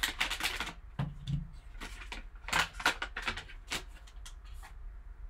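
Foil and plastic wrapping of a sports-card value pack being torn and pulled open by hand: an irregular run of short crinkles and rustles, the loudest at the start and about three seconds in.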